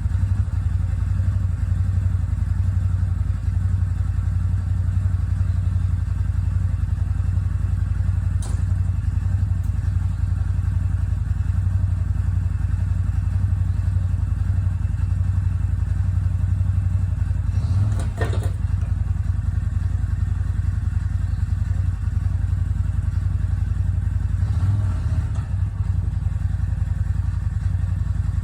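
CFMoto ZForce 950 side-by-side's V-twin engine idling steadily. A short knock comes about 8 seconds in, a louder metallic clatter at about 18 seconds, and another clatter near 25 seconds.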